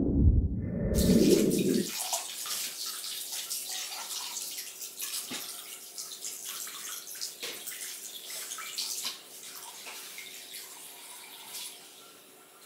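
Warm water from a hose running and splashing into a partly filled inflatable birth pool, slowly fading. A loud low rumble fills the first two seconds.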